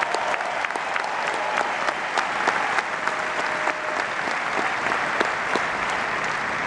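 Large crowd applauding steadily: a dense patter of many hands clapping.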